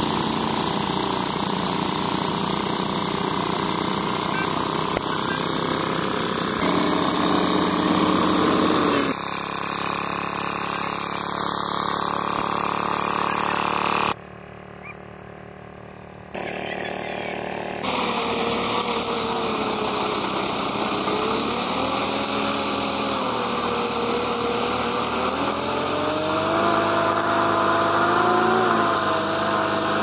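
Small engine of a rice threshing machine running steadily, its pitch wavering up and down as it takes load. The sound changes abruptly at several edits, and about two seconds around the middle are much quieter.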